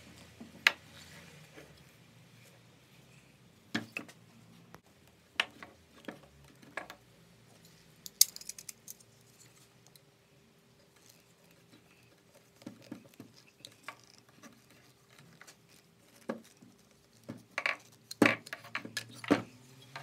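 Sharp clicks, knocks and rustles of hands working thick insulated cable through a microwave-oven transformer core on a wooden workbench, fitting the heavy-cable winding that makes it a spot welder. A denser run of knocks comes near the end.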